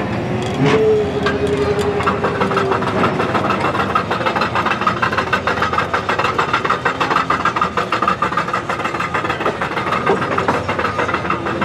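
A demolition derby vehicle's engine running at idle with a fast, ticking pulse. There is a loud knock about a second in.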